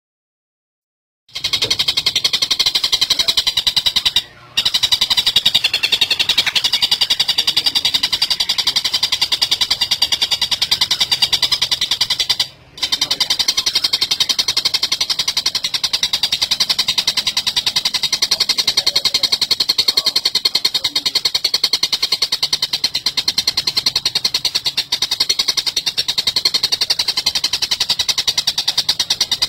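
Oriental dollarbird (tengkek buto) giving its harsh, rapid chattering call, a fast unbroken run of notes. It begins about a second and a half in and stops briefly twice.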